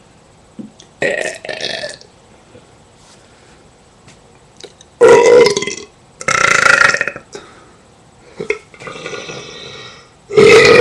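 Loud, deliberate burps, several in a row, each lasting about a second, with pauses between them.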